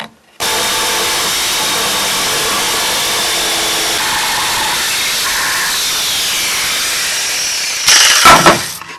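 Electric power saw cutting out a wooden board, starting abruptly and running steadily, then louder for about a second near the end before it stops.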